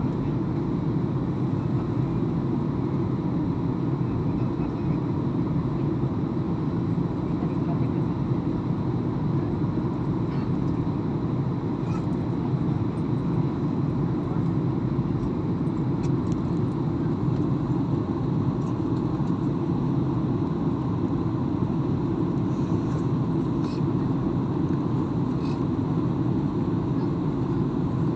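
Steady airliner cabin noise during the descent before landing: an even low rumble of engines and rushing air heard from inside the cabin, with a few faint small clicks.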